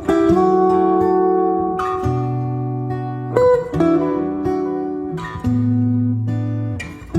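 Background music: plucked acoustic guitar playing slow chords that change every second or two.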